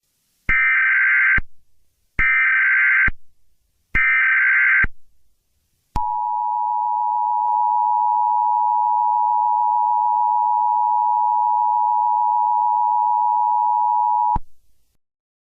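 Emergency Alert System signal: three short buzzy bursts of SAME header data, then the steady two-tone attention signal held for about eight seconds and cut off abruptly.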